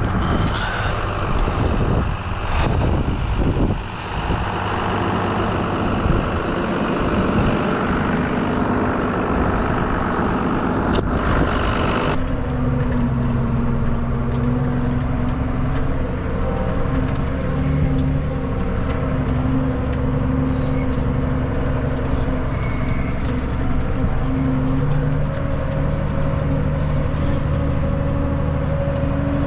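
For about the first twelve seconds, wind noise on the microphone with a few knocks, while walking outdoors in snow. Then an abrupt change to the steady drone of a tractor engine heard from inside its cab while driving, with an even engine pitch throughout.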